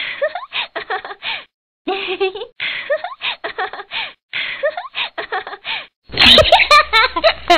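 Dubbed-in human giggling and laughter in short bursts with brief silent gaps, turning much louder about six seconds in.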